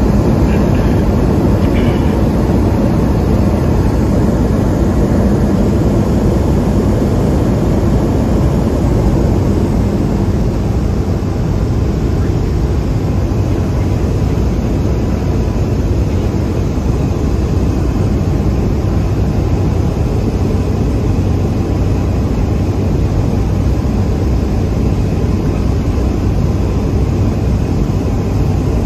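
Cabin noise inside a Cessna 208 Caravan in flight: its single Pratt & Whitney PT6A turboprop engine and propeller drone steadily and loudly, dipping slightly in level about eleven seconds in.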